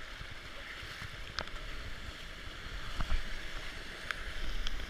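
Steady rush of flowing water, with low rumble on the microphone and a few short, sharp clicks and knocks.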